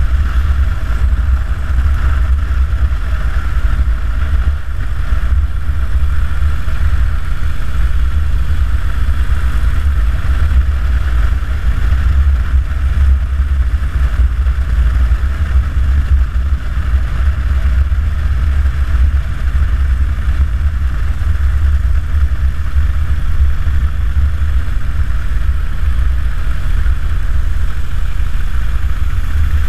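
Harley-Davidson Dyna Super Glide's air-cooled V-twin engine running at a steady pace on the road, heard close from the handlebars with a deep rumble and wind noise mixed in, without gear changes or sharp revs.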